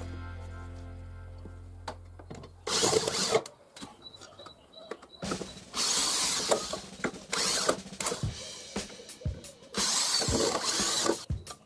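Power drill boring into wood through the mounting holes of a steel base plate, in several short bursts with clicks and knocks between them. A low hum fades out over the first two seconds.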